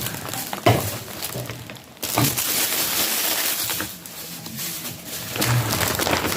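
A knock, then plastic packaging rustling and crinkling as items are handled.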